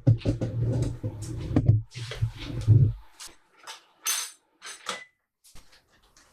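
Microwave oven running with a low hum and rattling clicks, cutting off about three seconds in. Light clinks and clatter of a dish or container being handled follow.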